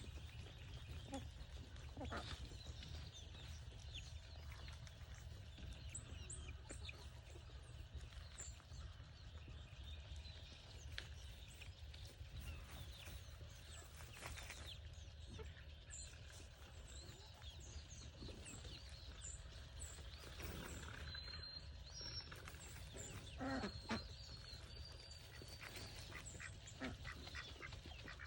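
Farm birds calling while they feed: many short, scattered calls with a few louder ones about three-quarters of the way through, over a steady low hum.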